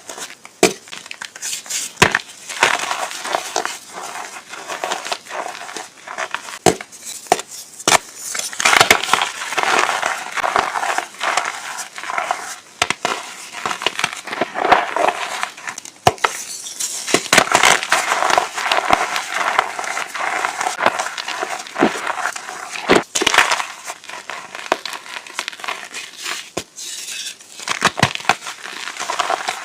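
Reformed chalk, pressed back together from powder, being crushed and crumbled: a continuous gritty crunching with sharp snaps scattered through.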